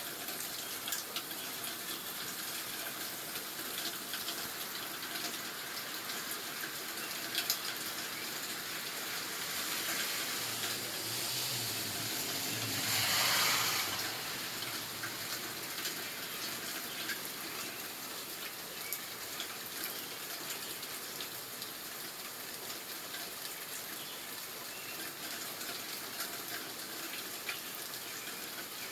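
Water rushing steadily, swelling briefly about halfway through.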